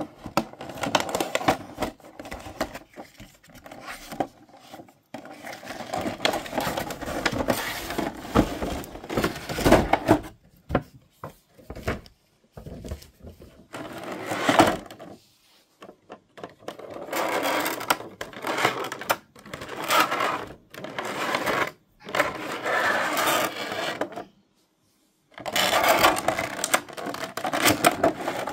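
Cardboard box and clear plastic blister packaging being handled and pulled apart: irregular bursts of rustling, crinkling and clicking, broken by a gap of about a second near the end.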